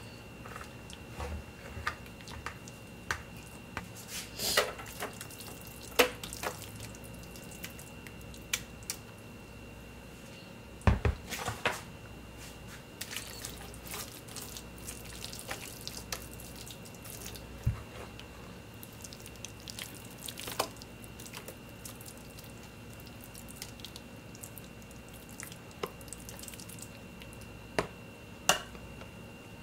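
Metal spoon working wet cornbread dressing in a speckled enamel roasting pan: scattered clinks and knocks of the spoon against the pan, with soft wet squishing of the mixture. A faint steady high tone runs underneath.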